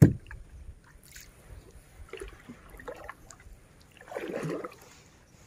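A sharp knock on a wooden dugout canoe's hull right at the start, then paddle-and-water sounds as the canoe moves through the river: small dips, trickles and drips, with a louder splash about four seconds in.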